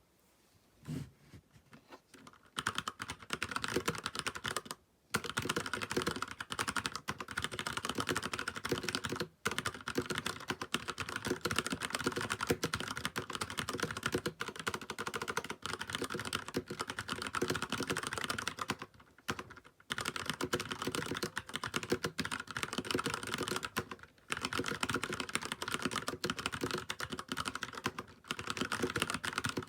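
Typing on a Filco Majestouch Convertible 2 mechanical keyboard with stock Cherry MX Brown switches: a few scattered keystrokes, then a fast, continuous patter of key clicks broken by a handful of brief pauses.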